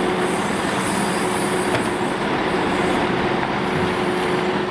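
Scania timber truck's diesel engine running as the truck pulls forward, a steady noise with a constant mid-pitched whine through it.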